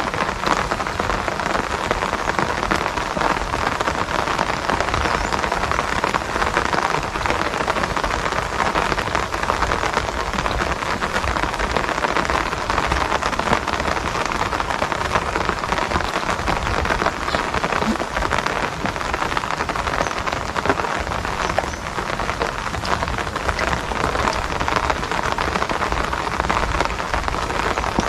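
Steady rain falling, a dense, even hiss of countless drops striking the surface, with no let-up.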